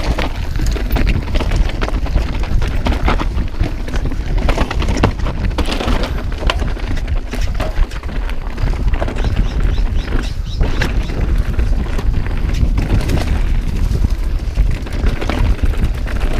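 Mountain bike descending a dirt singletrack at speed: wind buffeting the microphone in a constant low rumble, with tyres crunching over dirt and rocks and frequent short clicks and rattles from the bike.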